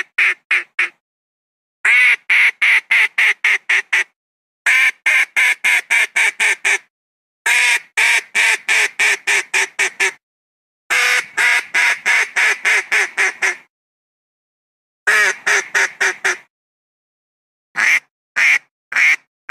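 Philippine duck (sold as 'Philippine mallard') quacking in rapid series of evenly spaced quacks, about three to four a second, in bouts of several seconds broken by short silences, ending with a brief run of three quacks.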